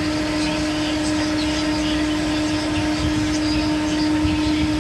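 A steady mechanical hum at one constant pitch over a low rumble, with faint scattered ticks.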